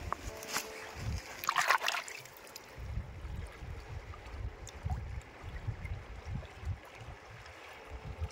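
Shallow river water trickling and splashing, with a louder splash about a second and a half in and repeated low thuds after it.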